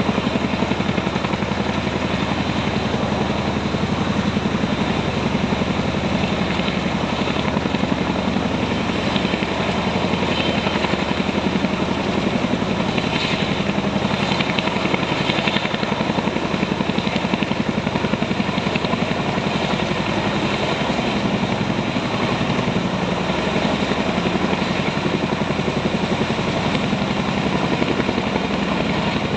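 Army helicopter running steadily, its rotor beating in a rapid, even rhythm.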